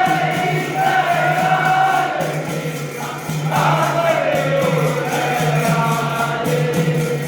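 Devotional aarti singing by many voices over a steady low drone, with a regular beat of percussion throughout.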